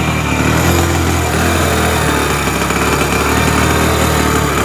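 Hero HF Deluxe BS6's 100 cc-class single-cylinder fuel-injected engine running and being revved with the throttle, running unevenly: it is misfiring ('missing'), with the check-engine light on.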